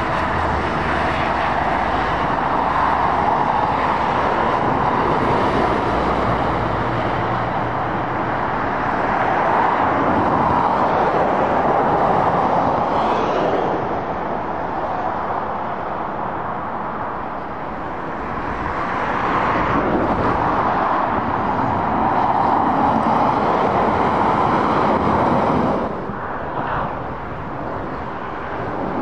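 Steady dual-carriageway traffic noise: tyres and engines of lorries and cars passing below, swelling and easing as vehicles go by, with a sudden drop near the end.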